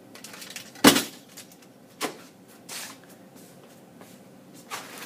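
Handling noises from a small box of model-kit parts: one sharp knock about a second in, then a lighter click and a couple of brief rustles.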